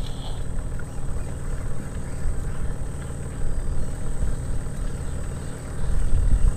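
Small fishing boat's outboard engine running at low speed, a steady low drone that grows a little louder near the end.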